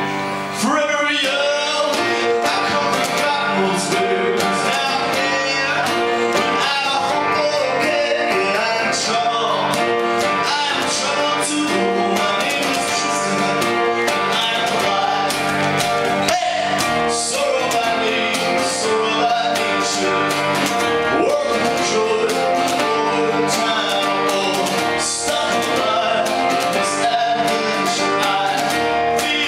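Live acoustic song: a man singing over a plucked and strummed ukulele.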